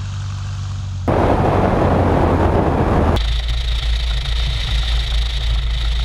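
Piper PA-28's piston engine and propeller running at taxi, picked up by microphones outside the aircraft: a steady engine hum, then about a second in a loud rushing noise for about two seconds, and from about three seconds in a deep rumble with a thin high tone over it.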